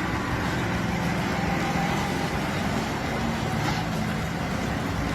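Heavy logging truck's engine running steadily.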